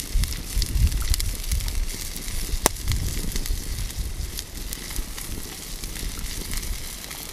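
Prime rib burger patties sizzling on a wire grill grate over a wood campfire, with the fire crackling in many small pops and one sharper pop about two and a half seconds in.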